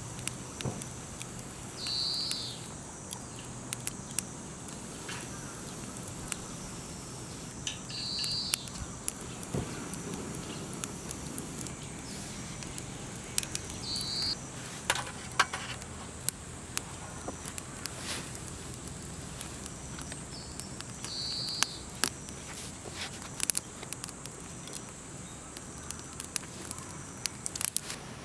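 Wood campfire crackling with scattered sharp pops, over a steady high-pitched insect drone. A short high call repeats about every six seconds.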